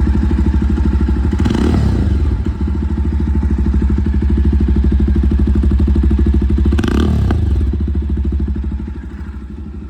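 Jawa 42 Bobber's single-cylinder engine running with its loud exhaust, a steady rapid thudding pulse. Two brief rushing noises break in about one and a half seconds and seven seconds in, and the level eases off near the end.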